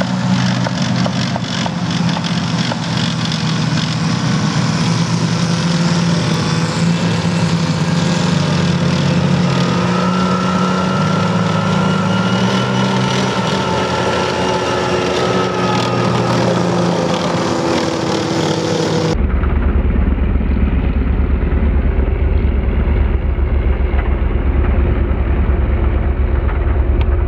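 CVR(T) Spartan FV103 tracked armoured personnel carrier driving past, its engine running loudly with the pitch drifting up and down. About two-thirds of the way in, the sound suddenly turns into a deep, dull rumble with the highs gone, like the vehicle's sound slowed down for slow-motion footage.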